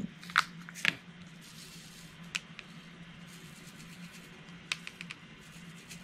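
A handful of short, light clicks and taps from diamond painting work, the applicator pen picking up resin drills from the tray and pressing them onto the canvas, over a steady low hum.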